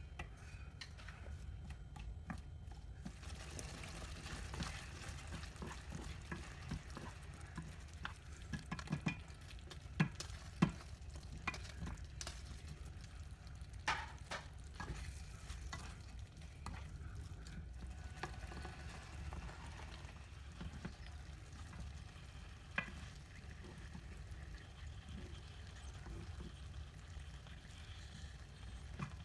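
Sundae stir-fry sizzling in a pan while being stirred, with the sizzle growing fuller about three seconds in. A few sharp clicks of the utensil against the pan stand out over it.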